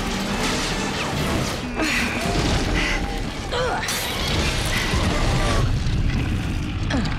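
Action-film soundtrack: music mixed with crashes, booms and grinding effects of stone monkey statues coming to life.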